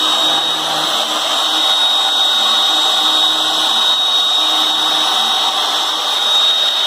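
Porter-Cable 7518 router motor running at speed as the spindle of a CNC router, a steady high whine, while the bit engraves a design into plywood. Faint lower hums come and go underneath.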